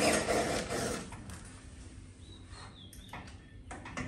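Cordless drill-driver driving a screw into the steel door frame, loudest in the first second, with a faint high whine that shifts in pitch around the middle.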